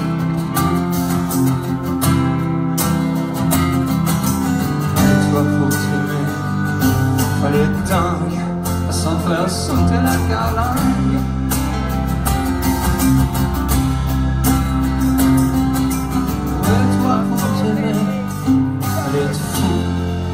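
Live rock band playing: strummed acoustic guitars and electric guitar over drums, with steady drum and cymbal hits.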